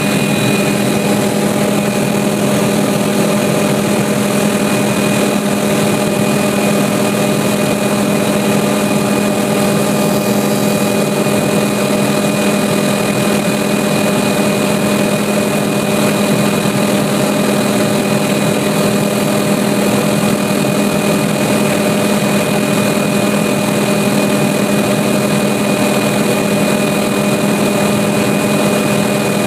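Light aircraft's piston engine and propeller droning steadily in cruise, heard inside the cabin as a loud, unchanging hum with a strong low tone.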